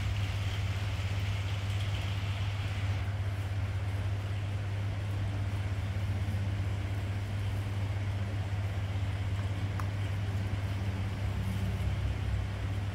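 Shipboard diesel engine machinery running, a steady low drone with a constant hum. A higher hiss on top cuts off abruptly about three seconds in.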